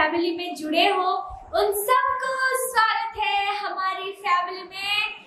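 A woman singing unaccompanied, holding some notes for close to a second.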